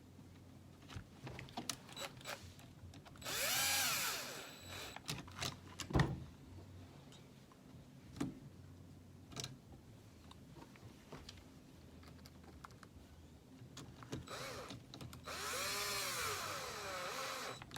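Cordless power screwdriver running twice: a short burst about three seconds in and a longer one from about fourteen seconds, its pitch rising and falling as it speeds up and slows. Small clicks and knocks of parts and tools being handled come between the bursts, the sharpest about six seconds in.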